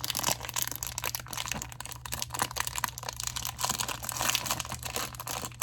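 Packaging crinkling and crackling in the hands as a small toy is unwrapped, a dense run of irregular rustles and clicks.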